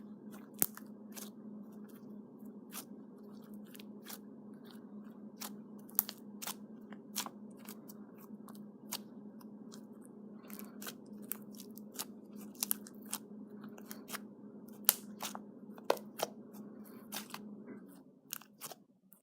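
Slime being squeezed and poked, popping and crackling in many sharp, irregular clicks. A steady low hum sits under it and stops near the end.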